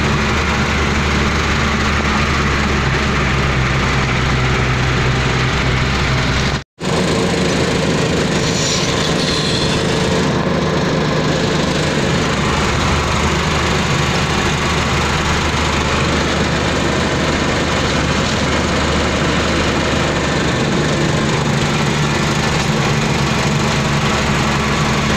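Truck's diesel engine running under way, heard from inside the cab as a steady drone with road and cab noise over it. The sound cuts out completely for a split second about seven seconds in.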